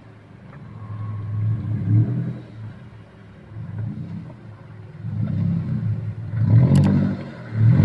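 Small pickup truck's engine revving up and down in repeated surges as it pushes through a shallow river, growing louder near the end.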